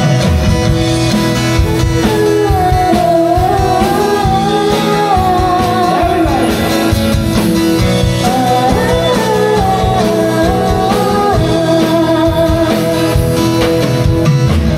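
Live band playing a song: a woman singing the melody into a microphone over acoustic guitar, keyboard and drums.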